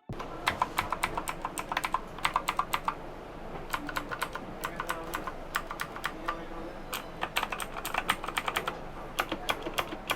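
Typing on a Motospeed CK108 mechanical keyboard with clicky Outemu Blue switches: quick runs of sharp key clicks broken by short pauses.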